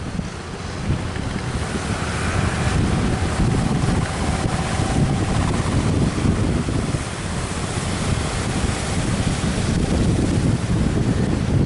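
Strong wind buffeting the microphone over the steady rush of surf at a rough sea.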